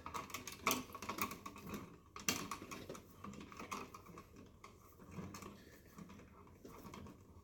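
Irregular light clicks and clatter from handling a hand tool and wiring at an electrical switch box, busiest in the first few seconds with two sharper clicks.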